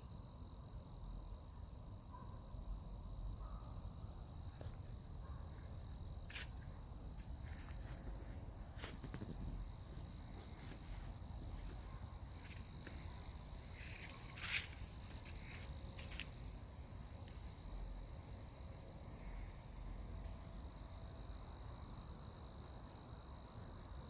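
Faint steady high-pitched insect trill, with a few soft clicks and taps scattered through it, the loudest about two-thirds of the way in.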